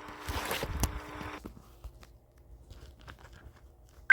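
Faint rustling and crackling with scattered clicks, which fades after about a second and a half into near quiet with a few soft ticks.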